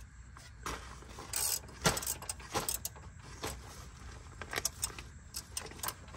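Light metallic clicks and clinks at irregular intervals, from hands working around a transmission jack and transmission mount under a truck.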